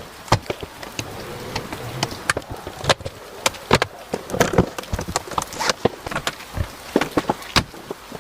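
An irregular run of sharp clicks and knocks, several a second, uneven in loudness, over a faint hum.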